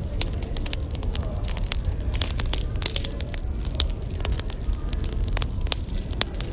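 Wood fire crackling: a dense, irregular run of sharp snaps and pops over a steady low rumble.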